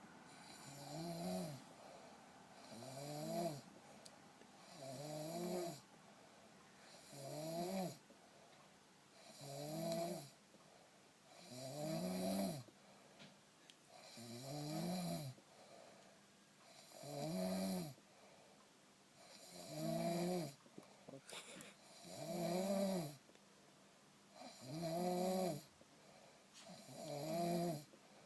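Heavy-set person snoring in a steady rhythm, about one snore every two and a half seconds, each with a pitch that rises and then falls.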